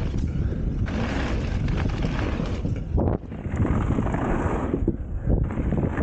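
2015 Norco Range full-suspension mountain bike descending a dirt trail: tyres rolling over the dirt and the bike rattling and knocking, under wind buffeting the microphone. The noise eases briefly about three seconds in, then picks up again.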